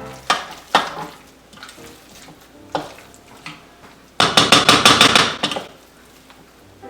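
A spoon beating an egg into churro dough in a pot, clanking against the pot's sides. There are a few separate knocks first, then about four seconds in a quick, loud run of rapid clanks and scrapes lasting over a second.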